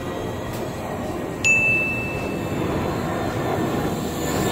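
Steady buzz of a cheap toy quadcopter drone's propellers in flight, with a single clear ding about a second and a half in that rings for about a second.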